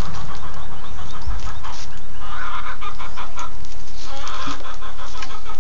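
Blue Andalusian rooster clucking, with two longer drawn-out calls about two and a half and four and a half seconds in.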